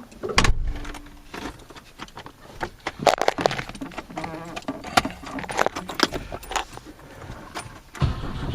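Scattered clicks and knocks, then near the end the 1976 BMW 2002's four-cylinder engine, fitted with a Weber carburetor, fires on a cold start and settles into a steady run.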